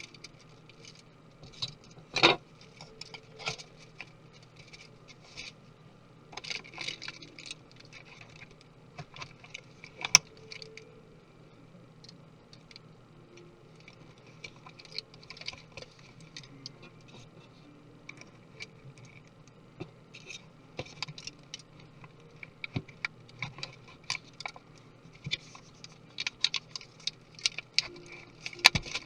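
Small tools and parts of a 2017 13-inch MacBook Pro clicking and tapping irregularly as the laptop is taken apart, with sharper knocks about two seconds in, around ten seconds and near the end.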